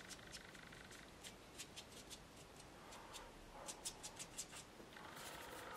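Faint, irregular light ticks of a paintbrush dabbing and tapping on watercolour paper, with a brief soft hiss near the end.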